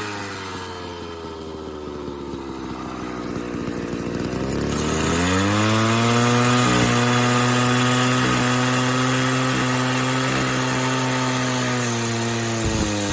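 Homelite XL-98 cut-off saw's two-stroke engine running: revs sag toward idle over the first few seconds, then it is opened up sharply about five seconds in and held at high revs, with a brief dip and recovery near the end.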